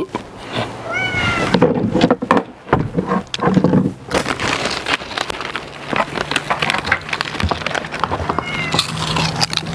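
Two short meows, about a second in and near the end, over a busy run of clicks and rustling.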